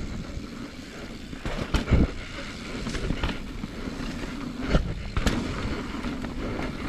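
Mountain bike riding fast down a rough dirt trail: steady rush of tyres and wind, broken by a handful of sharp knocks and rattles as the bike hits bumps.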